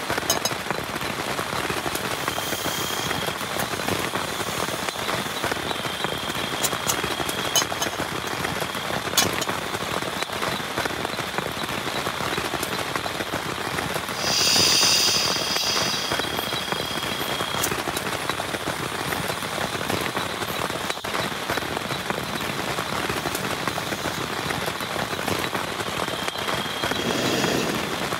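Heavy rain falling steadily, with many sharp individual drop hits. About halfway through, a brief high-pitched sound with several pitches rises above the rain for a second or two.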